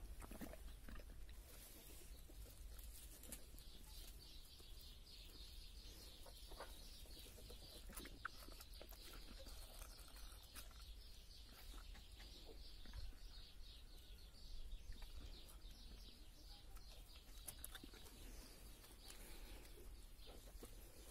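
Near silence: quiet outdoor ambience with faint, fast high chirping in the background and a few soft clicks.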